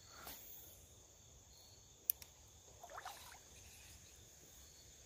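Quiet creekside sound: a faint, steady, high insect trill, one sharp click from the spinning reel about two seconds in as the angler works it over the water, and a short splash at the water about a second later.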